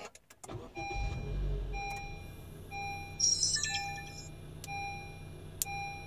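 Car powering up with a low rumble as it starts, a chime repeating about once a second, and a short bell-like jingle from a dash cam. Through it come the faint clicks of the audio system's relays: the AudioControl LC-Q1's internal relay and a 555-timer delay relay switching the amplifiers on a few seconds later. There is no thump from the speakers, the sign that the delay relay fix works.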